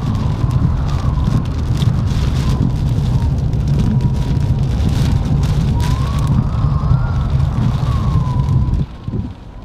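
Heavy hurricane rain and wind on a car driving through the storm: a loud, steady low rumble with a thin, wavering whistle over it. The rumble drops away shortly before the end.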